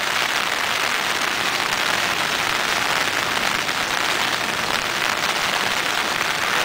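Steady hurricane rain falling on a wet concrete path and grass, an even hiss that holds at one level.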